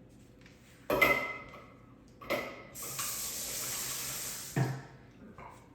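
Two sharp clinks of kitchenware, the first ringing briefly, then water running from a kitchen tap for about two seconds, ending with a thump.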